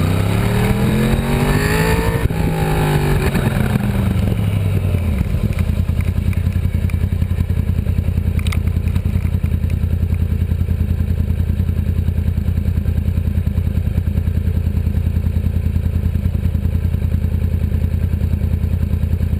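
Stock Yamaha R1 RN22's crossplane inline-four engine revving: the revs climb for about two seconds, fall away, and settle into a steady idle about five seconds in. A single brief click comes near the middle.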